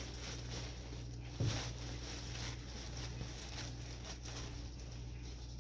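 Shipping bag rustling and crinkling as it is opened by hand, with a soft thump about a second and a half in.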